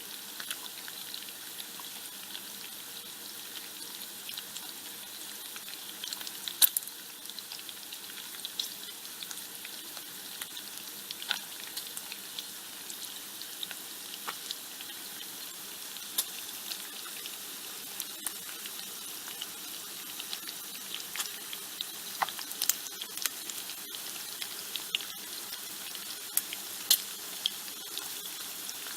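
Bacon frying in a pan: a steady high sizzle with irregular sharp crackles and pops of spattering fat, which come more often in the later part.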